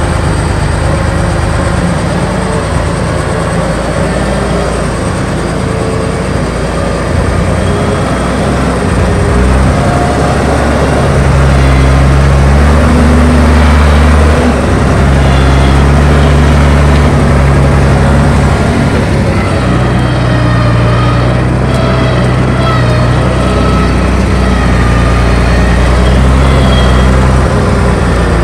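Diesel engine of a model 1880 farm tractor running steadily under load while pulling a disc harrow across a slope. It gets louder and deeper about a third of the way in as the load changes.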